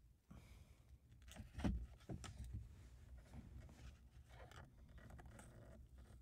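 Faint handling noises as hands work the shift boot and plastic shifter surround, with a few light knocks and clicks, the loudest about a second and a half in.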